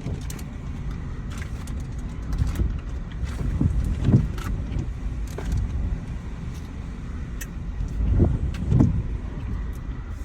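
Car on the move: a steady low road and engine rumble, with a few dull thumps and scattered faint clicks.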